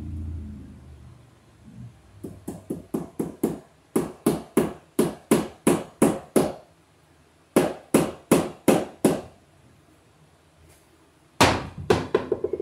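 Hammer striking on a wooden stud, driving staples to fasten electrical cable: a few light setting taps, then runs of sharp blows at about three a second, with a quick cluster of strikes near the end.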